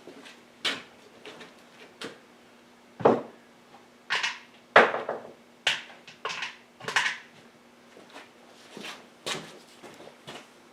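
Scattered clicks, knocks and short scrapes of parts and tools being handled on the quad's air filter and airbox, the loudest knocks about three and five seconds in, over a faint steady hum.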